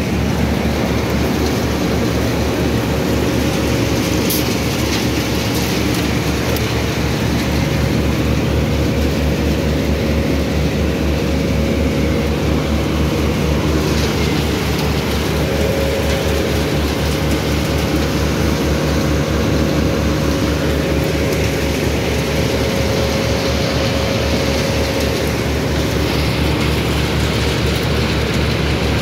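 Asphalt batching plant machinery running: a loud, steady drone with a fast low throb and a steady hum.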